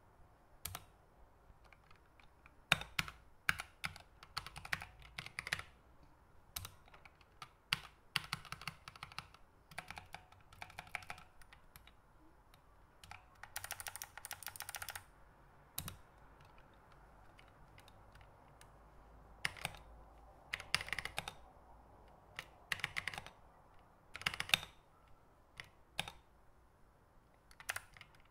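Keystrokes on a small mechanical numeric keypad: key switches clicking in short, irregular runs with pauses between, including a longer, denser run about halfway through.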